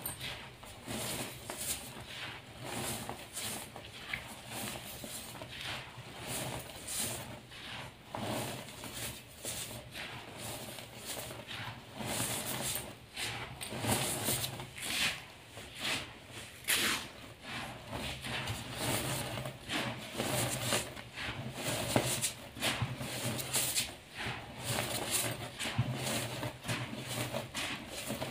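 Yellow-dyed gym chalk powder crunching and swishing as gloved hands squeeze, crush and pat it, in an irregular run of soft crunches several a second.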